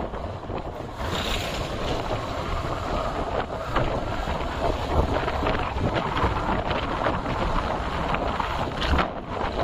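Wind buffeting the microphone on the move, over a steady low rumble, with a few brief knocks.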